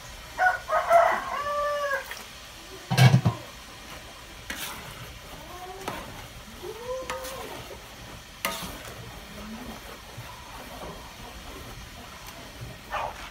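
A rooster crowing about half a second in, followed by more, lower chicken calls around six to seven seconds. A single loud knock about three seconds in, with a few lighter clicks, while rice is stirred in a metal wok.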